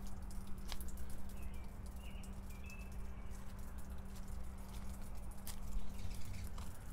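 Outdoor yard ambience: a steady low hum with scattered light clicks and taps, and a few faint chirps about a second and a half to two and a half seconds in.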